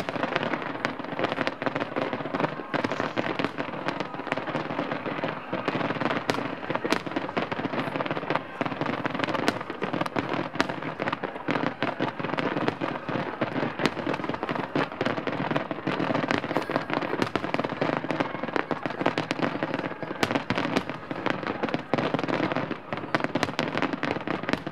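Aerial firework shells bursting in a rapid, continuous barrage: many overlapping bangs, several a second, with no break.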